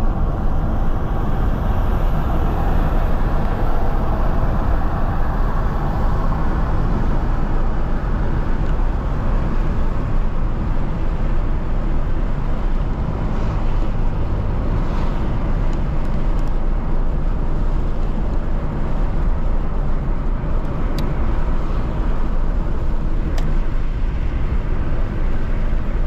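Steady road and tyre noise with engine hum, heard from inside a car's cabin while driving on an asphalt highway. A couple of faint ticks come late on.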